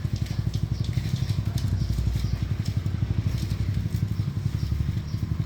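Small motorbike engine idling, a steady rapid low pulsing.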